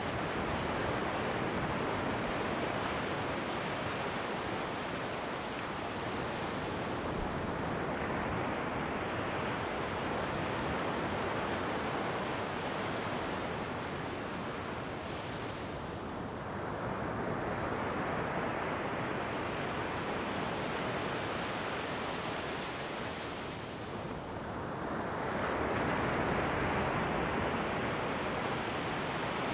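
Sea waves breaking and washing up the shore in a steady rush, with the surf swelling louder about three times: at the start, about halfway through and near the end.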